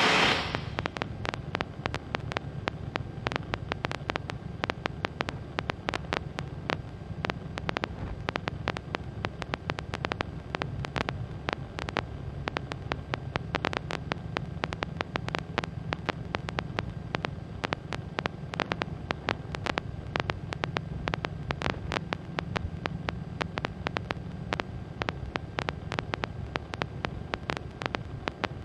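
Skyranger microlight's engine and propeller in cruise, a steady low drone heard from inside the cockpit. A rapid, irregular crackle of clicks runs over it throughout.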